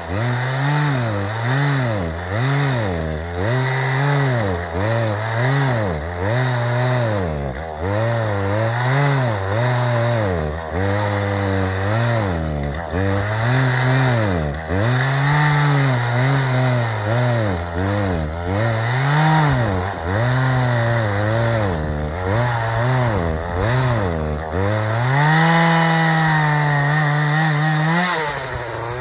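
Two-stroke chainsaw working in oak wood, its engine speed dipping and recovering about once a second as the chain goes under load. Near the end it holds steady at full revs for a few seconds, then the throttle is released and the engine drops sharply toward idle.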